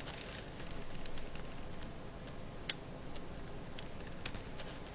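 Scattered faint plastic clicks and ticks from a K'nex rifle being handled, with two sharper clicks about two and a half and four seconds in.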